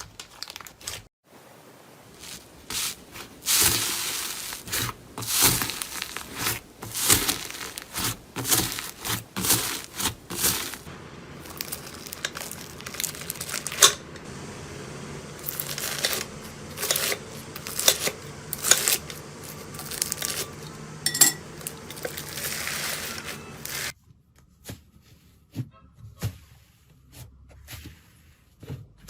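Slime being squeezed, stretched and poked by hand: a dense run of sticky crackles, clicks and pops. About 24 seconds in it drops to fainter, sparser clicks.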